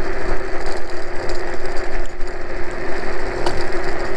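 iScooter iX4 electric scooter running at speed: a steady motor whine over the rumble and rattle of its tyres on a rough road surface, with a single click about three and a half seconds in.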